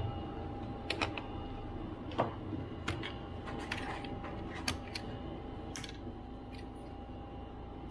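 Light, scattered clicks and taps of small tools and parts being handled inside an opened MacBook Pro A1278 during disassembly, about a dozen over the first seven seconds, over a steady background hum.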